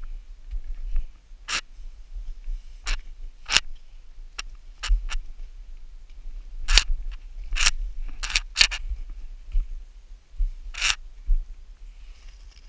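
Irregular sharp clicks and knocks, about a dozen, of boots, hands and gear striking rock while scrambling up a boulder ridge, over a low rumble.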